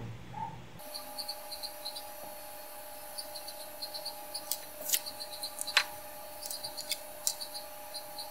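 Fast-forwarded bench sound of a pointed tool scratching the solder mask off iPhone logic-board pads. Faint, high, chirp-like ticks come in little clusters, with a few sharp clicks, over a steady hum that starts about a second in.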